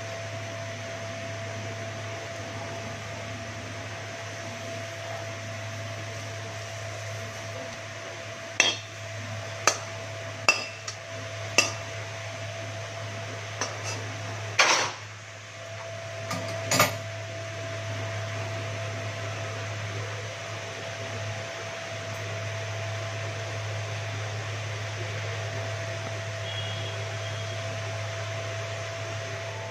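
A utensil knocking and clinking against a bowl several times as boiled greens are put into it, the knocks clustered in the middle of the stretch. Under it runs a steady low hum with a faint thin whine.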